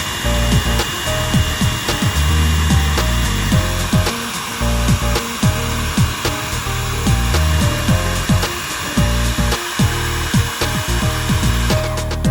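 Electric hair dryer blowing at full power, a steady rush of air with a faint high motor whine, switched off abruptly near the end. Background music with drum hits plays throughout.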